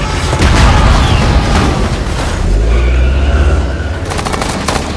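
Action-film sound mix: a deep, loud booming rumble of explosions under a music score, with a rapid rattle near the end.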